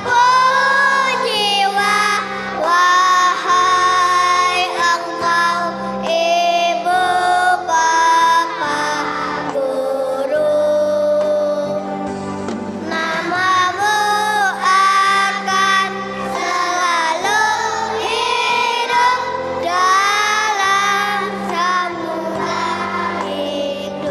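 A group of young children singing a song together over a backing track, the melody carried in long held notes.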